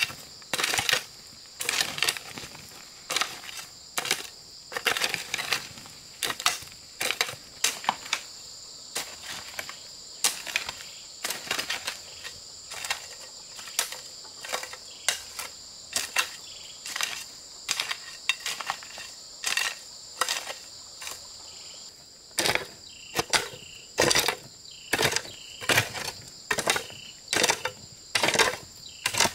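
A hand hoe chopping and scraping into loose dirt, one stroke after another at roughly one or two a second, over a steady high drone of insects.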